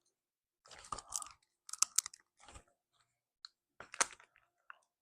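Teeth biting and gnawing at sealed plastic slime packaging to tear it open: scattered short crunches and plastic crinkles, the sharpest about two seconds and four seconds in.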